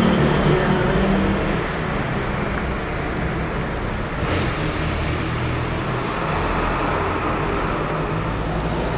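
Steady road traffic noise: a low rumble of vehicles on a busy street, with a brief swish about four seconds in.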